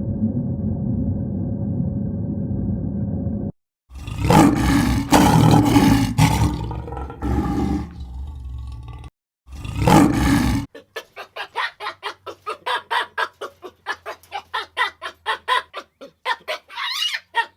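Animal calls: a steady low rumble gives way to a few loud, harsh calls, followed by a fast run of short repeated calls, about four or five a second.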